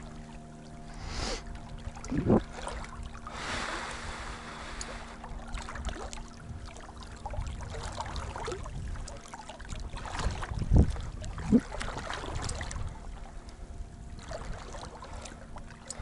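River current rushing around an angler wading far from the bank, with a faint steady hum and a few dull knocks; two of the knocks come close together about eleven seconds in and are the loudest.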